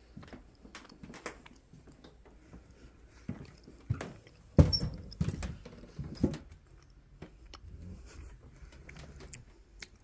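Footsteps on old wide-plank wooden floorboards: irregular knocks and taps, with a louder thump about halfway through.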